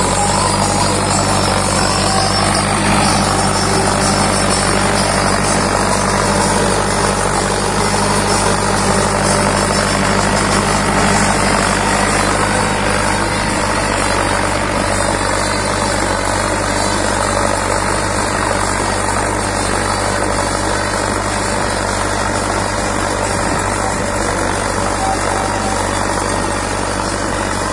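Mahindra Arjun Novo 605 DI tractor's four-cylinder diesel engine running steadily under load as it pulls a plough through the soil.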